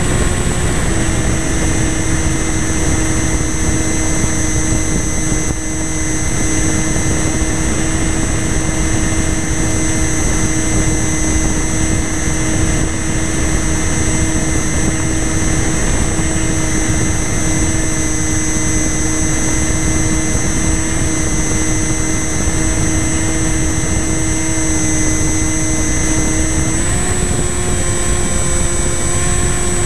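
Radio-controlled FPV plane's motor and propeller running at steady cruise, heard from on board over a constant rush of air. The hum holds one pitch, dropping slightly about a second in and rising a step near the end as the throttle changes.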